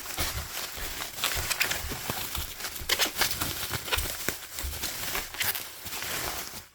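Bubble wrap and packing material being handled and pulled out of a box: irregular crinkling and rustling with scattered sharp crackles.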